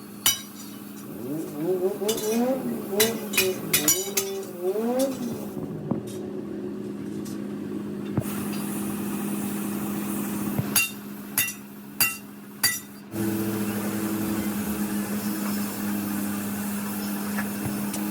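Several sharp metallic clinks and taps, with ringing, over a steady low hum. One group comes about 3 to 4 seconds in and another from about 11 to 13 seconds in.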